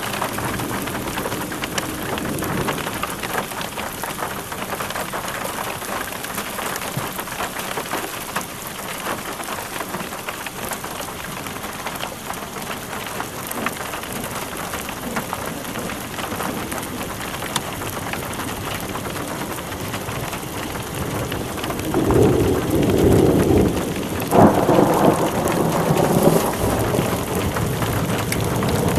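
Steady rain falling through a thunderstorm. Near the end, thunder rumbles twice, the second rumble starting sharply.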